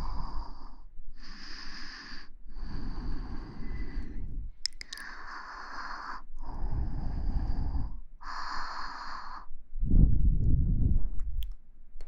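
Slow, close-miked human breathing: about six drawn-out breaths in a row with short pauses between them. About ten seconds in comes a louder, deeper rush of air, then a few faint clicks.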